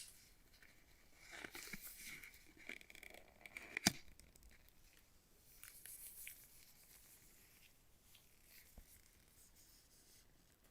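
Faint rustling and tearing of a smartphone box's packaging being handled, with one sharp click about four seconds in.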